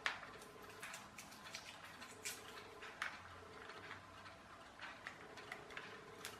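Plastic Rubik's cube being twisted by hand, its layers giving irregular small clicks and clacks as they turn, several a second, the sharpest right at the start. The cube is stiff to turn.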